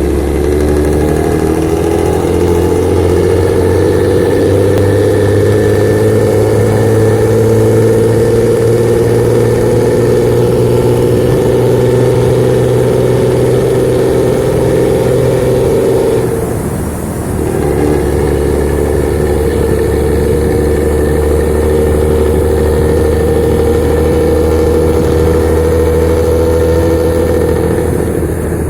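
A vehicle engine running loud and steady through a modified aftermarket exhaust that gives a deep snoring growl. Its note drops briefly a little past halfway, then picks up again.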